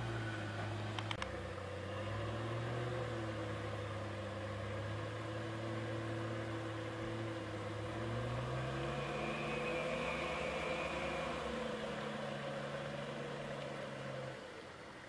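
Off-road 4x4 engine running as the vehicle drives slowly through wet sand and mud, its pitch rising about eight seconds in as it revs, then dropping away shortly before the end. A couple of faint clicks about a second in.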